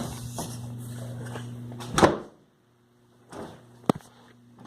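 A door thumping shut about two seconds in, then a single sharp click near four seconds, over a steady low hum.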